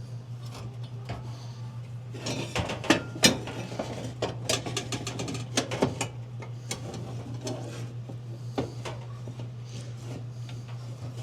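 Sheet-metal parts of a clothes dryer clinking and rattling as the heating element is worked out of the way by hand: a string of sharp clicks and clanks, busiest in the first half and thinning out later.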